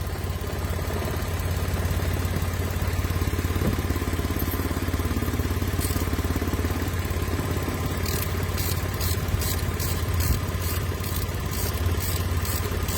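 Mitsubishi Mirage engine idling steadily after a no-start was cured. About eight seconds in, a light, high ticking about three times a second joins it.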